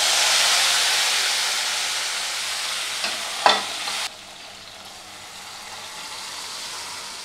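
Hot oil tempering sizzling as cooked toor dal is poured into the pan, the sizzle strongest at first and fading. There is a single knock about three and a half seconds in, and just after it the sizzle drops suddenly to a quieter hiss.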